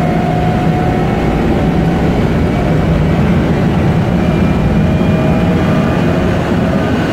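Centrifugal cargo oil pump and its vertical drive shaft running steadily on a test run after a new mechanical seal, a loud machinery drone with a steady low hum. It runs smoothly, without any abnormal noise, a sign the seal job went well.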